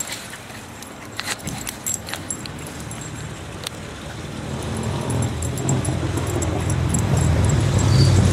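Scattered clicks and rustles, as a small dog is chased across a lawn. From about halfway through, a low engine rumble of a motor vehicle builds and grows steadily louder, as if the vehicle is drawing near.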